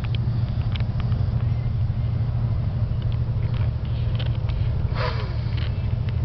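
Steady low rumble of a bus's engine and road noise heard from inside the passenger cabin. A few faint clicks near the start and a brief noise with a short falling squeak about five seconds in.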